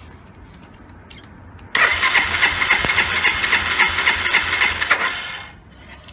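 Suzuki Grasstracker BigBoy's single-cylinder engine being cranked over for about three and a half seconds with the throttle wide open and a compression gauge in the spark-plug hole, so it does not fire. It goes in even pulses, about four a second, one for each compression stroke, while the gauge climbs to about 12 kg/cm².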